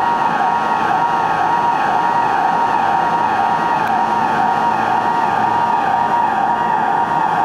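Emergency alarm buzzer of a Tokyo Metro subway station sounding continuously: a loud, steady electronic tone that warbles up and down in pitch without a break.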